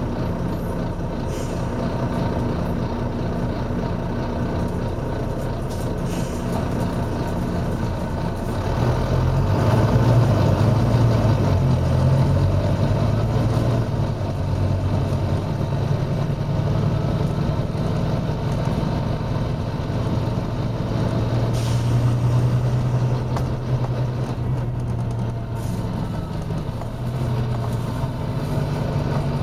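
Volvo B9TL double-decker bus's six-cylinder diesel engine running, its note getting louder and heavier about nine seconds in as it pulls harder. A few short air hisses from the pneumatic brakes come through now and then.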